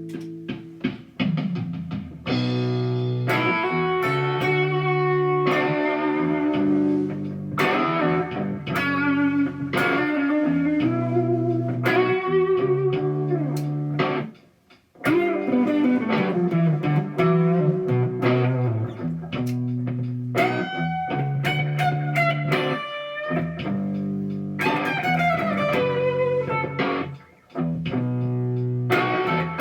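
A 2006 Gibson Les Paul electric guitar played through the Noise Therapy FX Insomnia distortion pedal, giving driven, sustained riffs of chords and single notes. It breaks off briefly near the middle and again near the end.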